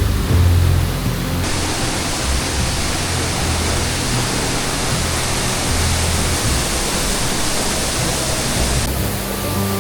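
Waterfall: a steady, dense rushing of falling water, with background music and low sustained notes underneath.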